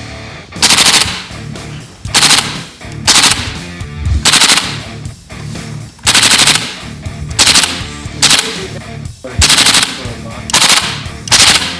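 KWA AKG-74 electric airsoft rifle firing about ten short full-auto bursts, each a rapid rattle of shots lasting under half a second. Loud for an airsoft gun.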